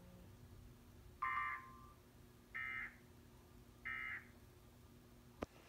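Emergency Alert System end-of-message data signal: three short bursts of two-tone digital squawk, about a second apart, marking the end of the warning broadcast. A single sharp click follows near the end, over a faint steady hum.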